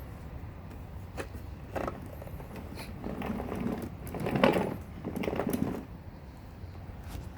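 Plastic parts of a Hitachi CV-F195 vacuum cleaner being handled: a few sharp clicks, then about three seconds of clattering and rubbing, loudest around the middle, over a low steady hum.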